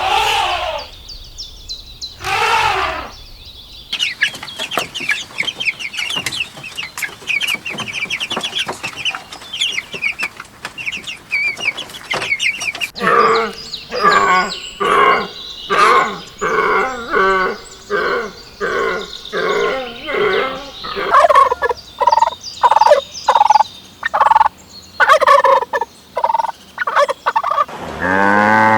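Domestic poultry calling. Rapid high chirps give way about halfway through to a long run of loud, repeated calls, about two a second.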